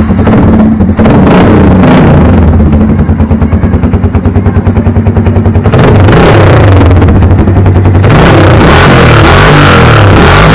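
Keeway RKS motorcycle's single-cylinder four-stroke engine running loud through a shortened exhaust muffler. It idles with an uneven pulsing, is revved up about six seconds in, and is held at higher revs toward the end.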